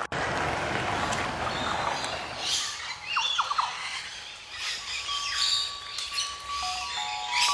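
Birds chirping and calling in short high notes from about two and a half seconds in, after a stretch of even rushing noise. Steady musical notes come in over the second half.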